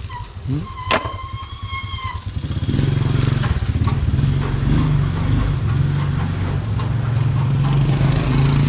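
A sharp click about a second in, followed by a brief whistle-like high tone. Then, just under three seconds in, the steady low hum of an engine running close by grows louder and holds.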